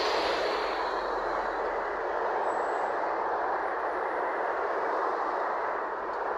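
Steady road-traffic noise: cars passing and a green LiAZ 5292.67 low-floor city bus pulling in to the stop, an even rush of engines and tyres with no distinct events.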